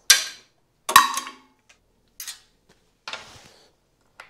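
Magnets and magnetic tool holders clacking onto the steel and cast-iron bodies of shop power tools. Two sharp metallic clacks with a short ring come about a second apart, followed by softer clicks and a brief scrape.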